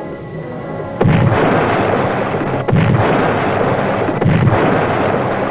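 Three depth charge explosions, one after another about a second and a half apart, each a sudden deep boom trailing into a long rumble. They are way off astern, a sign the attackers have missed the submarine.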